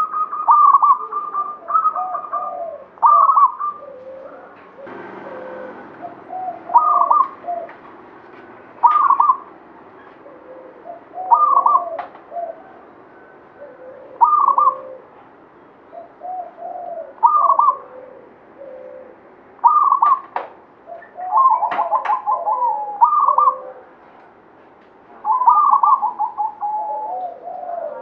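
Zebra dove (local Javanese perkutut) cooing its staccato song, phrase after phrase about every two to three seconds.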